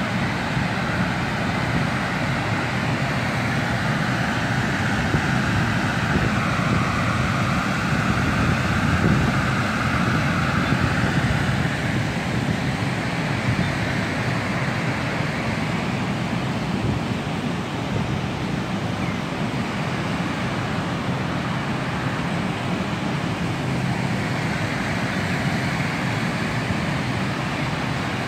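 Paulinskill River in flood spilling over the low Paulina Dam and rushing fast below it: a steady, loud rush of falling and churning water.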